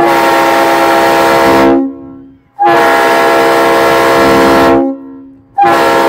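Air-powered train horn sounding three blasts, two long ones of about two seconds each and a short one near the end. Several notes sound together as a chord, and each blast trails off on a lower tone as it dies.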